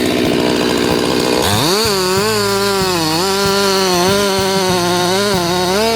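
Chainsaw engine running rough and low for about a second and a half, then revving up and held at high speed, its pitch dipping and recovering over and over.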